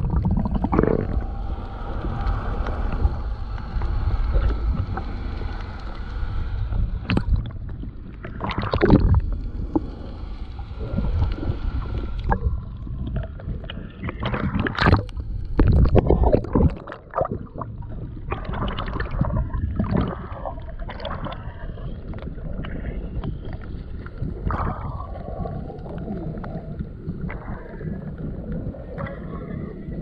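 Seawater sloshing and washing around an action camera at the waterline and just under the surface: a muffled low rumble, with irregular splashes and bubbling every few seconds.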